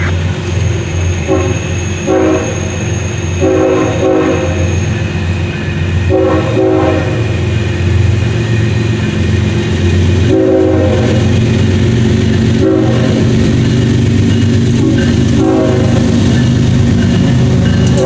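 CSX GE ES44AH diesel-electric locomotive approaching, its air horn played in a show of about eight short and longer blasts at irregular spacing. Under the horn the locomotive's diesel rumble grows louder as it nears.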